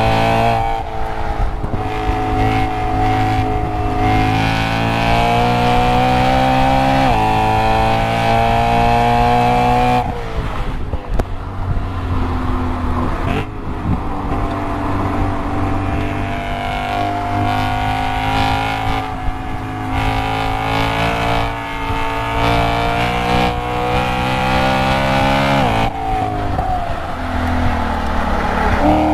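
BMW E92 M3's V8 with an Akrapovic exhaust, heard from inside the cabin on track: the engine note climbs under full throttle, drops sharply about seven seconds in and again around ten seconds, runs lower and uneven for a few seconds, then climbs steadily again. It falls near the end as the dual-clutch gearbox upshifts into fourth.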